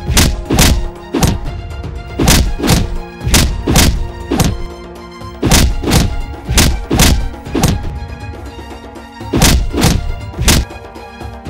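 Heavy, deep thuds about two a second, in short runs of two to five hits with brief pauses between, over steady background music.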